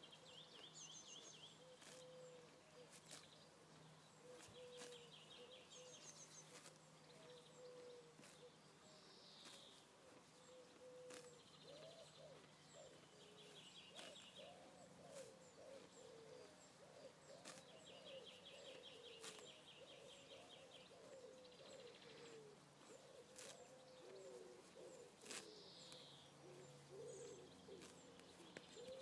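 Faint outdoor ambience: a bird repeating short high trills every few seconds, with lower wavering calls joining in about halfway through. Scattered sharp clicks every second or two, which fit a horse cropping grass close by.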